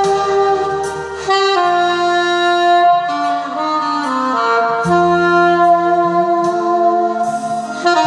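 Saxophone playing a slow melody of held notes over a sustained backing accompaniment.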